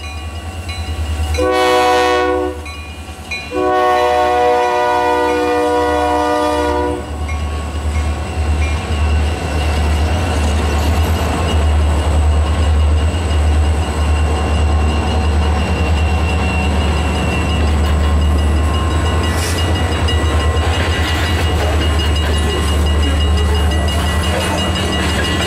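Diesel locomotive horn sounding a short blast and then a long one, a chord of several tones, followed by the steady low rumble of locomotives and loaded grain cars rolling past.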